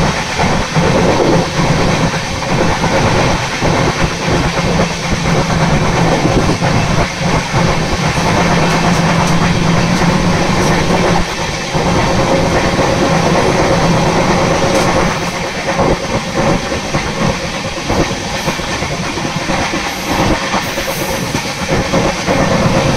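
Express passenger train coach running at speed, its wheels rattling and knocking over the rails, heard through the open coach door. A steady low hum under the noise fades out about halfway through.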